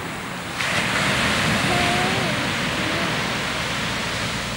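Ocean surf washing onto a sandy beach, a steady rush that swells about half a second in and holds.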